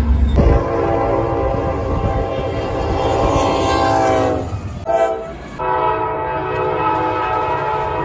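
Diesel locomotive air horns in a string of short clips. A long blast whose chord bends slightly down in pitch near the end as the locomotive passes, a brief toot about five seconds in, then another long steady blast, over the low rumble of the passing train.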